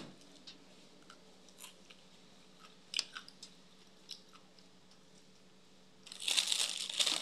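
A person chewing close to the microphone, with a few small mouth clicks, then loud crunching from about six seconds in as she bites into something crisp.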